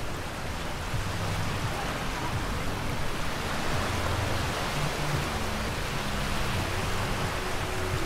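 Small waves breaking and washing up the sand at the water's edge, a steady hiss of surf that swells a little in the middle.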